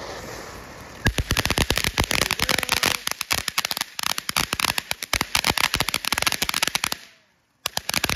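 Ground fountain firework: a steady hiss for about the first second, then a dense run of rapid crackles and pops. The crackling drops out for about half a second near the end, then starts again.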